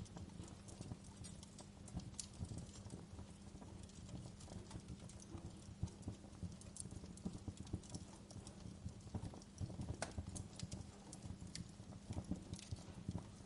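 Wood fire crackling: irregular sharp pops and snaps, a few louder ones, over a soft steady hiss of rain.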